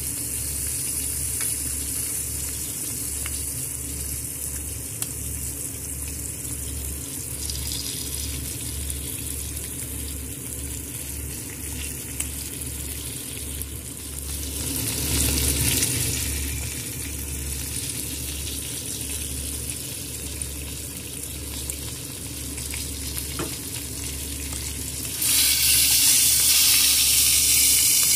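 Wagyu New York strip steak searing in oil with whole garlic cloves in a nonstick pan, a steady sizzle. About three seconds before the end the hiss suddenly gets much louder.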